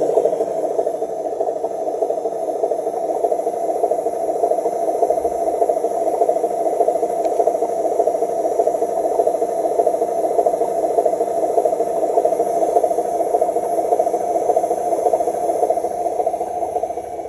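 Drivetrain of a radio-controlled 6x6 dump truck, its electric motor and gearbox running steadily as it drives loaded with sand over grass and dirt. The sound is a continuous, even mechanical buzz that holds its level throughout.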